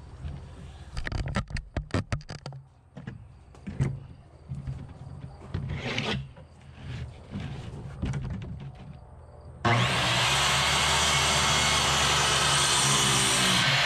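Scattered knocks and clicks as the board and circular saw are set in place. About ten seconds in, the circular saw starts abruptly and runs loud and steady, cutting across a wooden board.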